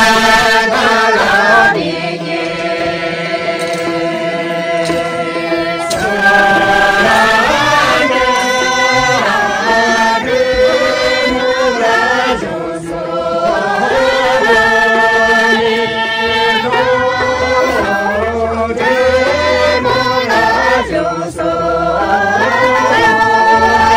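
A group of voices singing a traditional Bhutia folk song together for a circle dance, in long held phrases with brief breaks between them.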